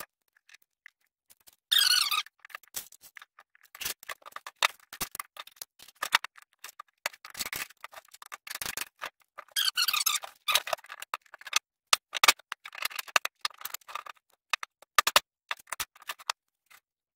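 Irregular clicks, knocks and scrapes from a power drill and wooden blocks being handled on a workbench while starter holes are drilled for screws, with a couple of short noisy bursts about two seconds in and about ten seconds in.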